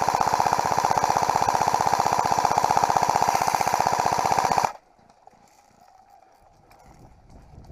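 Airsoft rifle firing one long full-auto burst, a rapid even stream of shots for nearly five seconds that cuts off suddenly: suppressive fire to cover a teammate running across.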